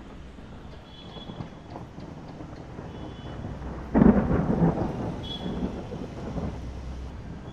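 Thunder: a sudden loud clap about four seconds in, followed by a rumble that fades over the next few seconds.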